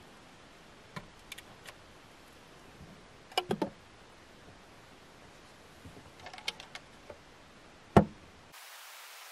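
Small clicks and clinks of a plastic soup cup going into a small electric rice cooker's inner pot, then three loud clinks as its glass lid is set on. About eight seconds in comes a single sharp clack, the loudest sound, as the lid's side clips are snapped shut.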